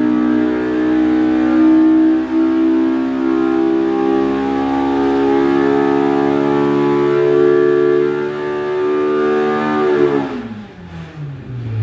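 Polaris RZR Pro R's four-cylinder engine at full throttle on an engine dyno with its stock header and exhaust, pulling under load as its pitch climbs slowly from about 7,000 to nearly 9,000 rpm. About ten seconds in, the throttle shuts and the revs fall quickly.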